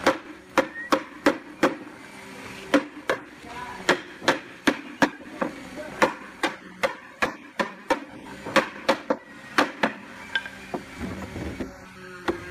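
Steel hammer knocking on a wooden table frame, driving its rails and panel joints together: a run of sharp knocks, about two to three a second, with a couple of short pauses.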